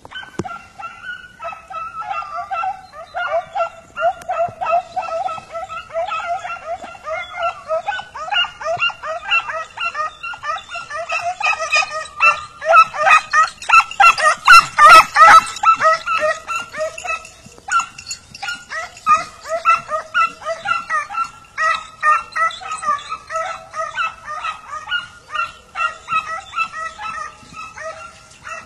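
Hunting dogs yelping and baying in quick, high-pitched cries that run on without a break and are loudest about halfway through: the hounds in full cry on a rabbit's trail.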